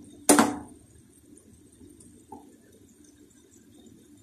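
A cooking spoon knocks once against a metal frying pan of minced chicken, a sharp clink about a third of a second in, followed by only a faint low background hum.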